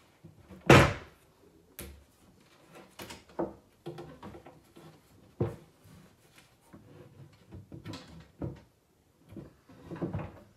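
Irregular wooden knocks and clunks as parts of a flat-pack wooden cocktail table are handled and fitted together, the loudest about a second in.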